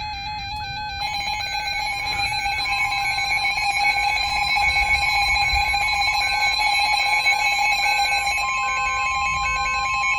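Emergency Alert System warning tones from a NOAA Weather Radio alert: steady electronic alarm tones with a short beep repeating over them, changing about a second in and again near the end. They signal a special marine warning about to be read.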